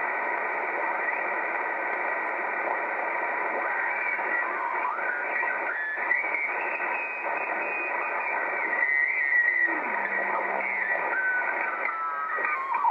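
Motorola-built R-390A tube communications receiver putting out steady static hiss while it is tuned across the 20-metre amateur band. Whistles and garbled sideband signals slide up or down in pitch as stations pass through, several times.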